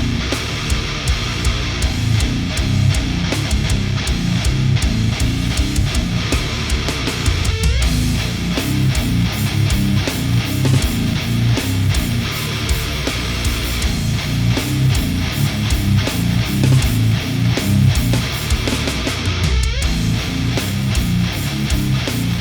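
Heavy, distorted metal music: electric guitars and bass over a fast, steady drum beat, with no vocals.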